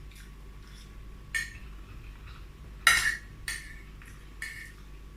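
A spoon clinking against a plate of rice and stew: four short knocks, spaced out, the loudest about three seconds in.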